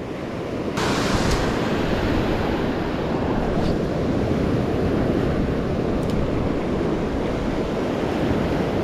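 Surf washing in over the sand and reef at the water's edge, mixed with wind on the microphone; the rushing swells sharply about a second in and then holds steady.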